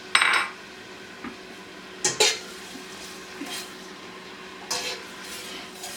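A utensil scraping and clattering against a pot as diced poblano peppers are stirred in melted butter. Three strokes, roughly two seconds apart, over a faint steady sizzle.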